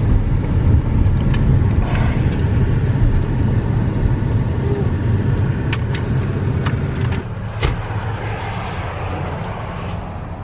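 Steady low rumble of a car's cabin while driving, with a few light clicks over it; the rumble eases about seven seconds in.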